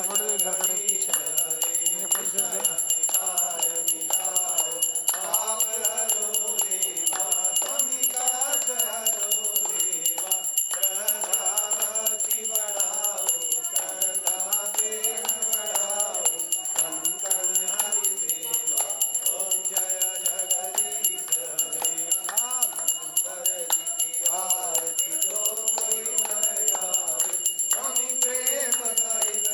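A hand bell rung continuously and rapidly, its high ring steady throughout, over a wavering melodic line of voice or music.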